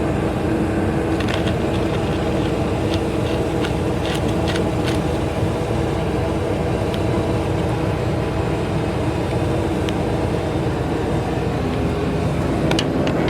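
Engine of an earth-moving machine running steadily at an even speed, with a few light clicks over it in the first few seconds.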